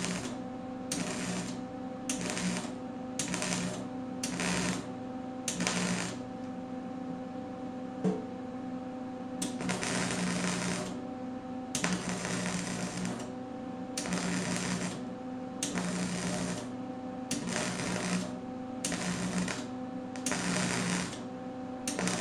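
MIG welder laying stitch welds on sheet steel: the arc crackles in on-off bursts. For the first six seconds or so the bursts are short, under a second each. After that they run longer, about one to one and a half seconds each, with short pauses between.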